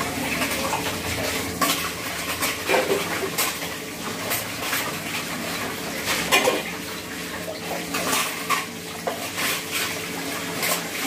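Kitchen utensils and dishes clinking and clattering as they are handled, a string of separate sharp clinks over a faint steady hum.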